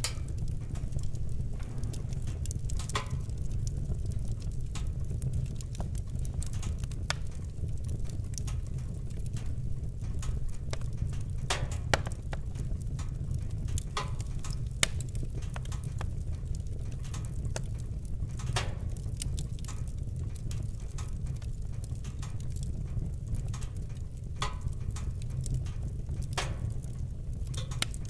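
Fire burning in a fireplace: a steady low rumble of flames with irregular crackles and pops, a couple of them sharper and louder.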